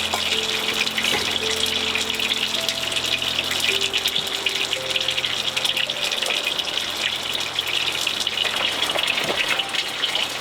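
Steady hiss of a pot of water heating toward the boil, with soft background music notes in the first half.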